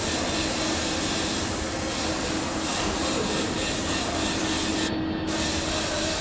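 High-speed precision stamping press running continuously, a steady mechanical hum with a constant low tone underneath.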